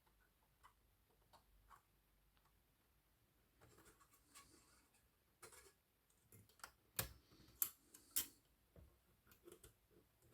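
Scattered light clicks and taps of metal parts and tools on an Olivetti Lettera 22 portable typewriter being reassembled, with three sharper clicks in the second half.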